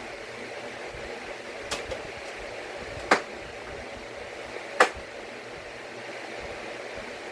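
Two sharp clicks about a second and a half apart, after two fainter ones, over a steady hiss: computer parts or connectors being handled and snapped into place during PC assembly.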